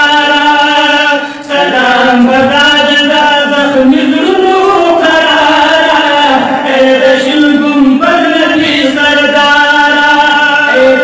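Men chanting a Pashto naat into microphones, long drawn-out sung notes that bend slowly in pitch, with a short break about a second and a half in.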